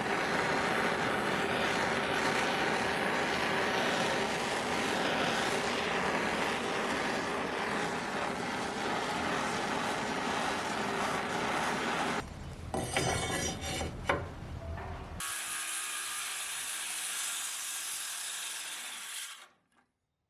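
Sandpaper scrubbing over a torch-charred wooden board to bring out the grain: continuous rubbing that changes texture partway through, turns lighter and higher near the end, and then stops.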